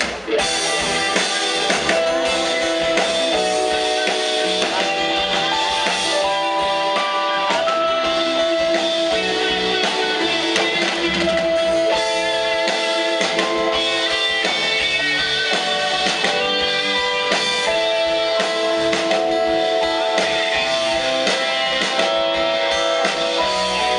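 Live band playing a song's instrumental introduction: strummed guitars over a drum kit, with a melody of long held notes, before the vocals come in.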